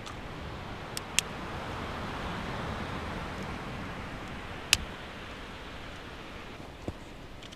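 Dry sticks and twigs knocking and snapping as they are stacked into a fire lay, four sharp cracks with the loudest about two-thirds through, over a steady background hiss.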